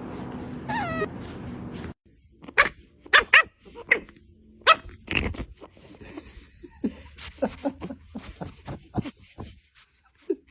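A dog whimpering with a short rising and falling whine, then a busy string of short sharp knocks and clicks with a few brief yips.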